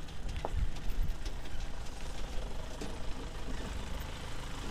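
Low, steady rumble of a jeep's engine moving slowly just ahead, mixed with the rattle of a bicycle rolling over a rutted dirt track, with a couple of short knocks about half a second and a second in.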